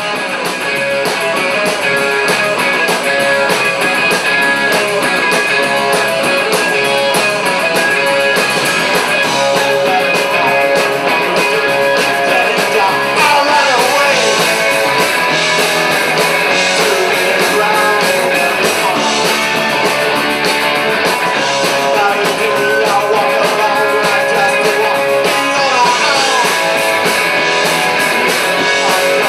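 Live rock band playing: electric guitars through amplifiers over a drum kit, loud and steady, building in over the first second.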